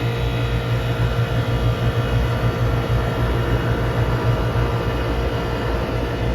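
Steady mechanical hum of running machinery: a strong, unchanging low hum with several constant tones above it.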